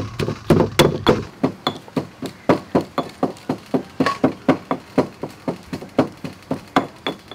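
Stone pestle pounding seasoning in a stone mortar, steady knocks about three a second. A little over a second in the deep thud drops away and lighter, sharper knocks carry on at the same pace.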